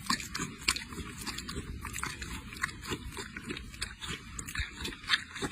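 A goat chewing and biting close by: irregular crunching clicks, several a second.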